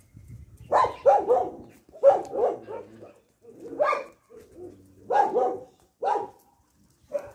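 A dog barking repeatedly, in short clusters of barks with brief gaps between them.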